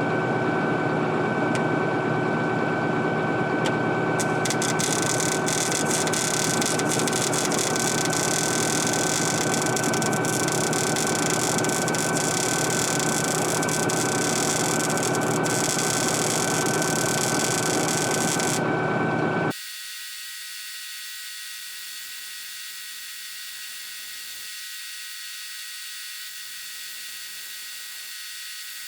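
Welding arc crackling and sizzling as a bead is laid, over an engine running steadily; the crackle starts about four seconds in and stops shortly before the engine sound cuts off abruptly. After that only a quieter steady high buzz remains.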